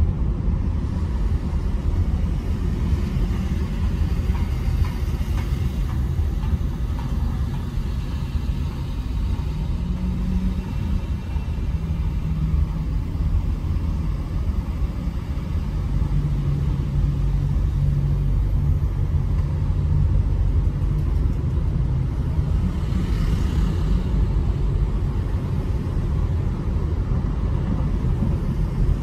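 Steady low rumble of tyres and engine heard from inside a car cruising on a freeway, with a faint engine hum that wavers in pitch through the middle and a brief hiss that swells and fades about three-quarters of the way through.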